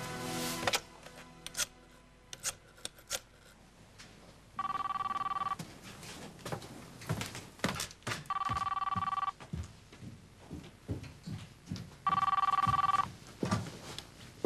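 Telephone ringing three times. Each ring is a steady electronic two-tone warble about a second long, coming every three to four seconds. Soft knocks and rustles fall between the rings.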